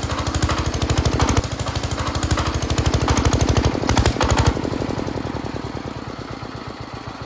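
Single-cylinder diesel generator engine running on a kerosene and isopropyl alcohol mix, knocking hard with a rapid, even 'khat khat khat' beat that is very loud; the owner takes it for the engine being damaged inside. About four and a half seconds in it is shut off, and the beats slow and fade as the engine runs down.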